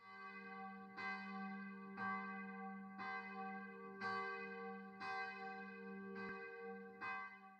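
Church bell tolling, struck about once a second, each strike ringing on into the next.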